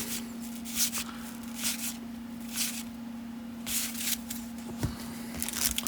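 Baseball cards being handled and shuffled through by hand: short, soft rustles and slides of card stock every second or so, over a faint steady hum.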